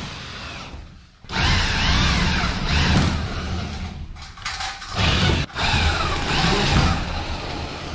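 Power drill running in three bursts, its whine rising and falling in pitch as the trigger is worked, with short pauses between.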